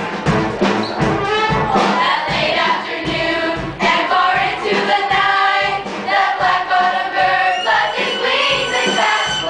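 A middle-school musical cast singing in chorus over a musical accompaniment with a steady beat.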